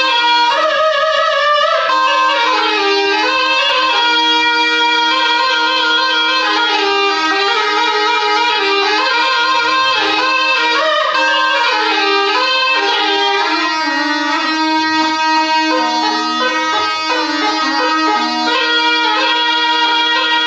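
A been, the Rajasthani gourd pipe of the snake charmers, playing an ornamented melody over a steady drone note without a pause for breath.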